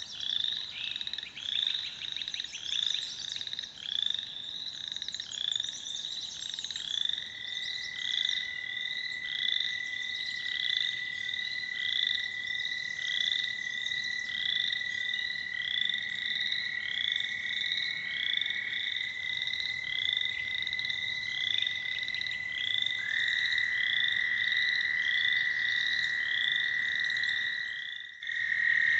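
A pond chorus of frogs and toads: short calls repeated over and over, with American toads' long, steady, even-pitched trills. One trill starts about a quarter of the way in, and a second, louder one joins near the end.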